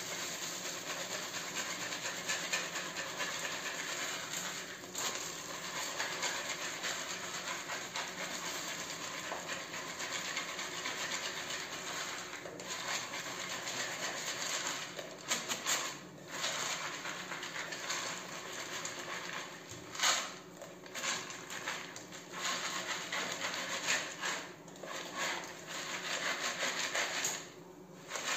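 Bee bread granules rattling and rustling over a queen-excluder grid as the wooden sifting tray is shaken back and forth, sifting out the wax crumbs. Steady at first, then coming and going with short pauses from about halfway.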